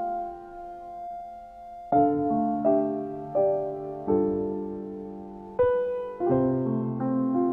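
Background piano music: a slow, gentle melody of single notes and chords.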